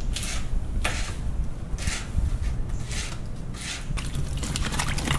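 Kitchen knife cutting a hot pepper on a plastic cutting board: a handful of separate cuts, about one a second. Near the end comes a dense patter of splashing and rubbing as vegetables are washed in a bowl in a steel sink.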